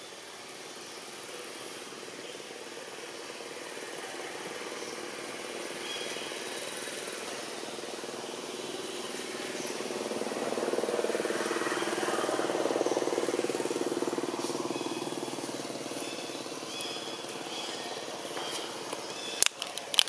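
A motor vehicle's engine passing at a distance, swelling to a peak about halfway through and fading again, over outdoor background with faint high chirps. A few sharp clicks near the end.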